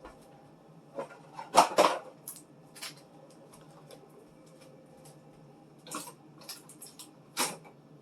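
Food containers and bottles knocking and clattering as they are set into a refrigerator. The loudest cluster of knocks comes about a second and a half in, with more near the end.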